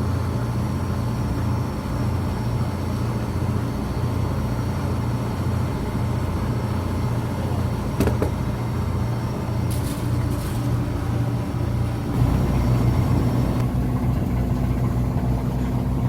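A boat's engine running steadily with a low, even hum, a little louder and changing in tone about twelve seconds in. A single knock about eight seconds in.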